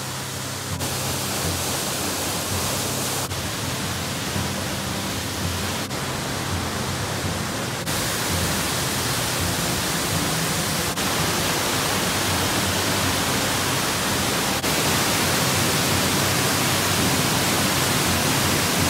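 Waterfalls pouring into rock pools: a steady, full rush of falling water. The tone shifts abruptly several times between falls, and it grows louder for the last few seconds.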